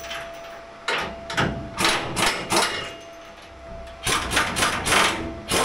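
Irregular metallic clanks and knocks from hand tools working on the bolted flanges of stainless keel-cooling pipes as they are undone, in two clusters: one early and one from about four seconds in.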